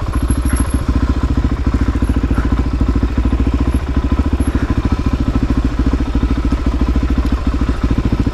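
Suzuki DR-Z400SM supermoto's single-cylinder four-stroke engine running steadily at low revs, its firing pulses coming through as an even, rapid beat.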